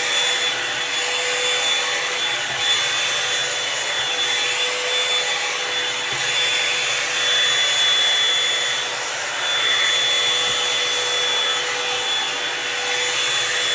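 Revlon One Step hair dryer brush running steadily: a rush of blown air over the motor's steady whine.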